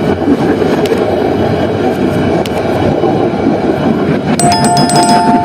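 Train running along the track, heard from the front cab as a steady, loud rumble. Near the end a brief two-note ringing chime sounds over it.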